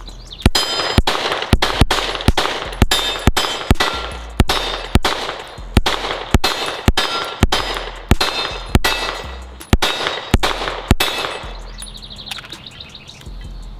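A rapid string of about twenty 9mm pistol shots, roughly two a second, from a Springfield Echelon 4.0C, with hits ringing off steel targets; the firing stops about eleven seconds in.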